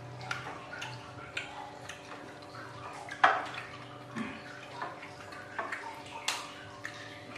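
Mealtime table sounds: scattered clicks and clinks of spoons and hands on plates and crunching of krupuk crackers, with a sharp knock about three seconds in and another a few seconds later. A low steady hum runs underneath.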